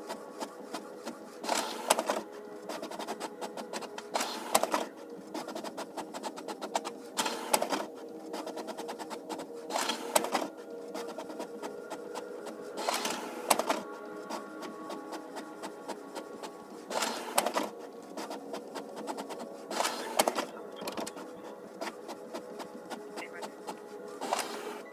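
Fax machine running its paper feed and print mechanism: a steady motor whir with fast, fine ticking, and a louder surge every two to three seconds.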